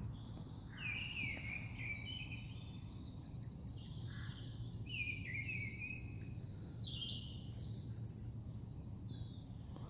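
Songbirds singing in the woods, many short chirps and quick falling phrases from several birds overlapping, over a faint steady low rumble.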